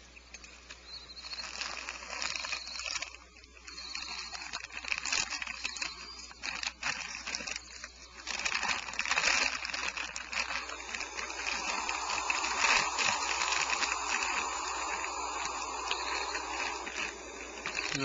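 Barn owl nestlings hissing: long, noisy hisses like air let out of a tire, louder and more continuous through the second half. It is the young owlets' defensive hiss, not yet the full display of older birds standing up to protect themselves.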